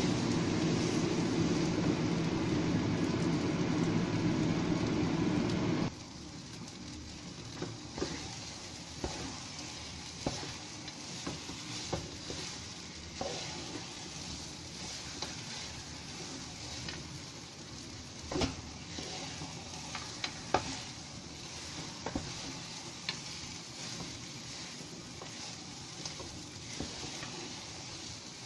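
A steady rushing noise that cuts off suddenly about six seconds in. Then thick, sticky rice is stirred and folded in a skillet, with irregular scrapes and knocks against the pan over a faint sizzle as the biko mixture cooks down with its coconut-sugar syrup and peanuts.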